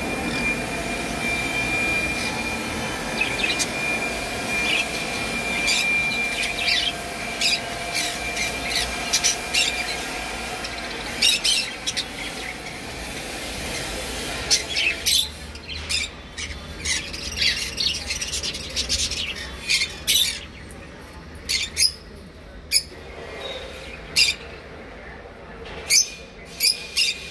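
Caged conures giving short, sharp calls, a few at first and then many in quick succession through the second half, over a steady background hum that drops away about halfway through.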